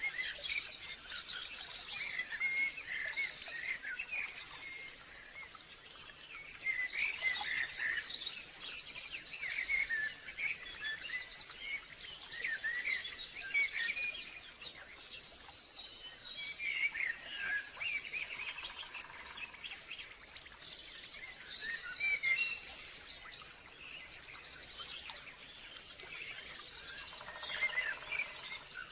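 Several wild birds calling and chirping in quick, overlapping phrases and trills, over a steady high tone. Near the end, a lower, held call joins in.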